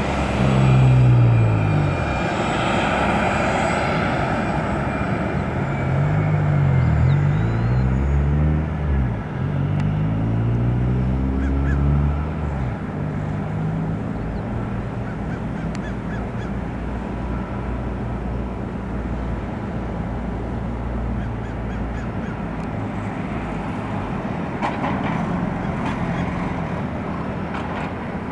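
Sikorsky S-92A helicopter's turbine engines running through startup, a steady drone with a thin whine, while its rotors turn. For the first dozen seconds a louder aircraft engine sweeps up and down in pitch as it passes, then fades, leaving the steadier drone.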